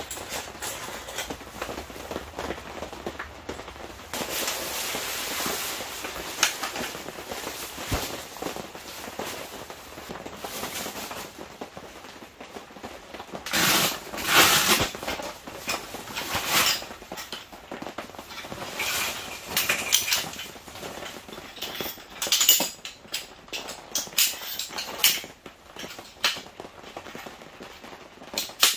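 Camping gear being handled: a fabric carry bag rustling and the metal tubes of a folding camp chair knocking and clinking as they are pulled out and fitted together, in an uneven run of rustles and sharp knocks.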